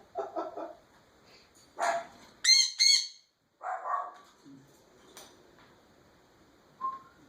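Pet parrot calling and squawking in short bursts. The loudest are two high-pitched squawks in quick succession about two and a half seconds in, followed by a shorter, lower call.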